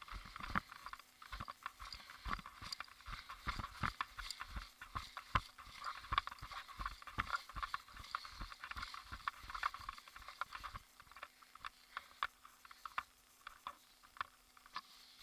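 Irregular footsteps and rustling, several steps a second, as of someone moving through dry vegetation; the rustling dies down near the end.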